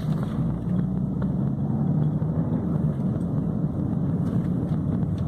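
Fiat Palio Fire car running steadily on a test, engine and freshly repaired gearbox turning smoothly.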